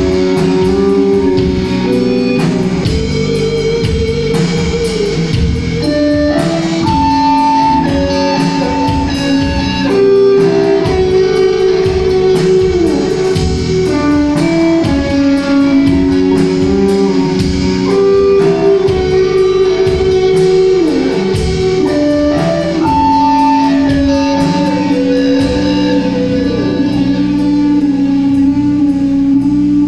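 Doom metal band playing live on electric guitars, bass, keyboard and drums: a slow melody of long held guitar notes that slide from pitch to pitch over steady drum hits.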